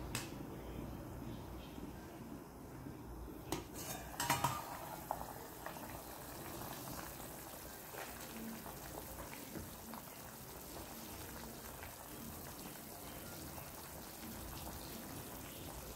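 A few sharp metallic clinks of a stainless steel pot lid about three and a half to four and a half seconds in, then the pot of pork stew simmering quietly.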